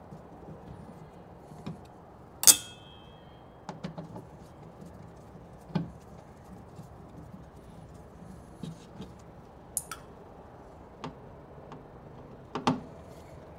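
Screwdriver backing screws out of a car door's speaker mounting bracket: scattered small metal clicks and scrapes, with a sharp metallic clink that rings briefly about two and a half seconds in and another near the end.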